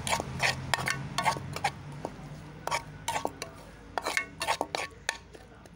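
A spoon stirring and scraping onion-tomato masala in a metal kadai, giving irregular knocks and scrapes against the pan several times a second. The spice powders are being mixed in. The knocks thin out and grow fainter near the end.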